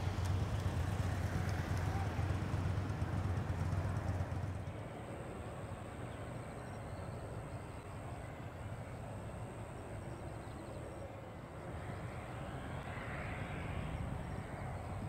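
Airport apron ambience around a parked Boeing 747-8F freighter. A steady low hum drops away abruptly about four and a half seconds in, leaving quieter open-air background with a faint, steady high-pitched tone.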